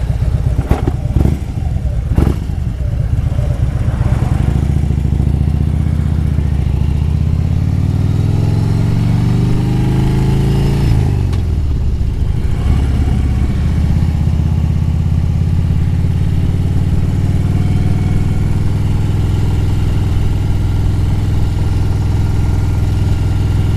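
Harley-Davidson Road Glide's V-twin engine under way, rising in pitch as the bike accelerates for several seconds, then dropping sharply about halfway through at a gear change and settling to a steady cruise. A few sharp knocks come in the first couple of seconds.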